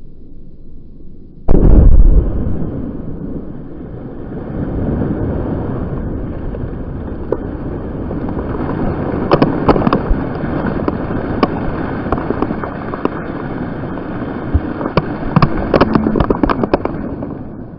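A Korsair 50000 firecracker exploding underwater in a deep pond: a sudden heavy boom about a second and a half in, then a long rushing downpour as the thrown-up water falls back, with many sharp spattering hits in its second half.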